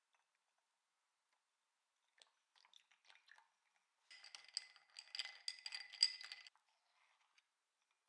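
Ice cubes crackling and clinking in a glass of freshly poured milk: scattered small ticks, then a dense run of cracks and clicks with a faint glassy ring for a couple of seconds from about halfway.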